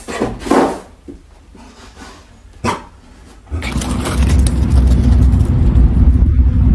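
A dog barking twice in quick succession, then once more a couple of seconds later. After that a loud, steady low rumble sets in and carries on.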